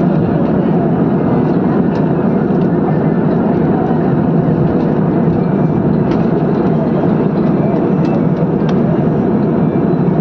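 Steady rushing engine and air noise inside an airplane cabin in flight, even and unchanging, with a few faint ticks over it.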